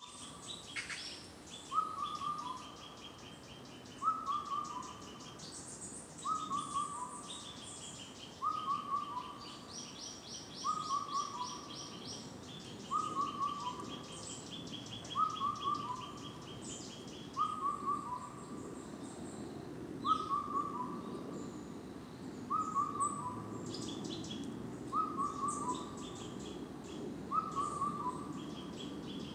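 Indian cuckoo singing its four-note call, a short falling phrase repeated evenly about every two seconds. Other small birds chirp and trill higher behind it.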